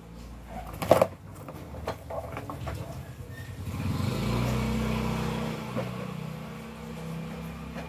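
A motor vehicle's engine passing by, swelling to its loudest about four to five seconds in and then slowly fading. A sharp knock comes about a second in.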